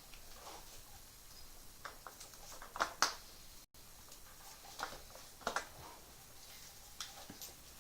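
Faint handling noises in a small room: a few short clicks and knocks, loudest about three seconds in, with more around five and a half seconds.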